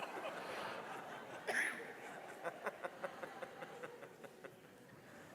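People laughing, with a brief louder outburst about a second and a half in, then scattered chuckles.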